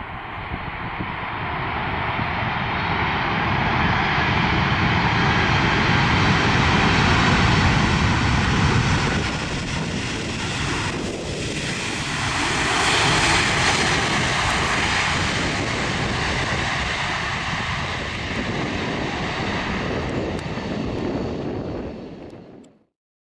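Jet engines of a Boeing 747-400ERF freighter on its landing, a loud steady roar that builds up. About eleven seconds in, the pitch falls as the jet passes. The roar swells again, stays steady and then cuts off abruptly near the end.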